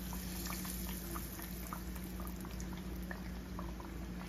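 Floured bluegill fillets sizzling in hot frying oil in a cast iron skillet as they are laid in, a steady sizzle with many small scattered crackles and pops.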